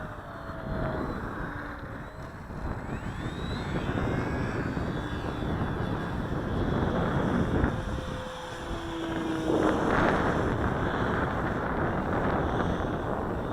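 The electric motor and propeller of a Max Thrust Riot radio-controlled plane flying past, its whine gliding up and down in pitch as it passes and the throttle changes. Gusty wind buffets the microphone underneath it.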